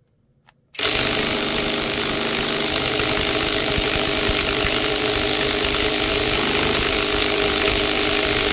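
Bauer brushless 3/8-inch cordless impact wrench hammering steadily on a large trailer lug nut, starting about a second in. The nut does not break loose: the wrench is not strong enough for it.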